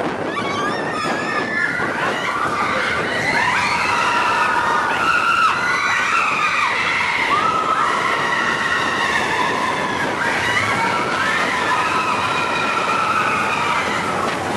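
Mine-train roller coaster running along its track, a steady rumble of the cars with wheels squealing on the rails in several overlapping high tones that rise and fall.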